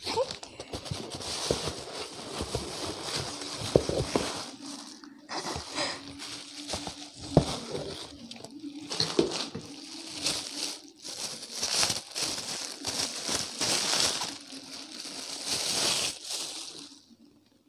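Plastic wrapping and a cardboard box being handled as a parcel is unwrapped by hand: irregular crinkling and rustling with small clicks, dying away near the end.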